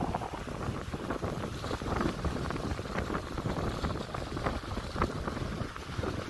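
Wind buffeting the microphone in gusts, over small waves washing and lapping on a shoreline.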